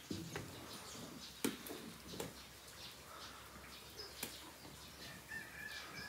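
Quiet cow barn sounds: scattered sharp clicks and knocks, a few short low thuds, and a thin high whistled call starting near the end.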